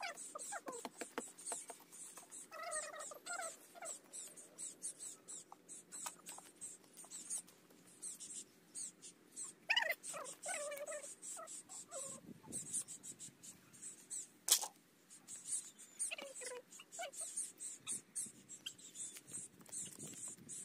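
A young animal whimpering in short, high, falling cries, a few bunched together a couple of seconds in and again about ten seconds in, over continual faint clicking and rustling with one sharp click.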